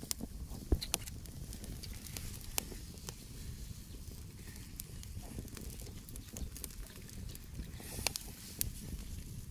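Small open wood fire crackling, with scattered sharp pops, one loud pop under a second in, over a steady low rumble.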